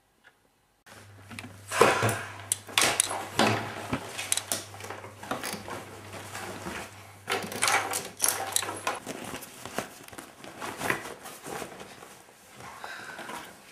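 Hurried rustling, knocking and clattering of clothes and small objects being grabbed and stuffed into a bag, starting about a second in.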